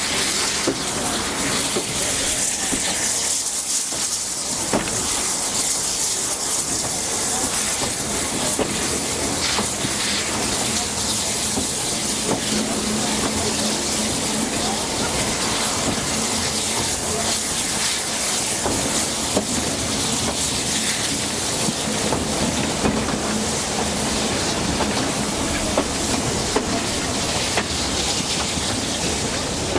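Narrow-gauge steam train running, heard from aboard: a steady rushing noise of the train and its steam hiss, with a faint steady hum in the middle.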